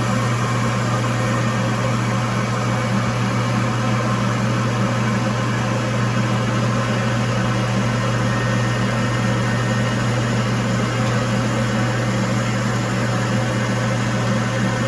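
Screen-printing conveyor dryer running with a steady low hum.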